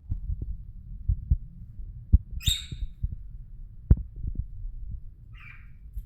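Pet parrots calling: one harsh squawk about two seconds in and a shorter raspy call near the end. Under them runs a string of irregular low knocks and thumps, the sharpest about two and four seconds in.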